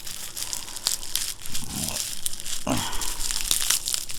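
Packaging being crinkled and torn open by hand as a parcel is unpacked: a steady run of crackling and rustling.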